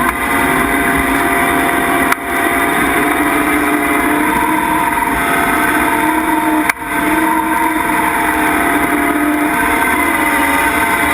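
Skid steer engine and hydraulic brush mower running steadily under load, their pitch wavering slightly. The sound drops away abruptly twice, about two and seven seconds in, then comes straight back.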